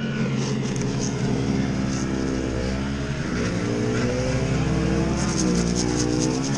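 An engine running steadily, its pitch dipping and rising a couple of times.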